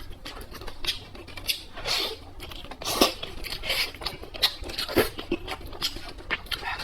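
Close-miked eating sounds: bites and chewing with crunching and tearing, and many small sharp clicks.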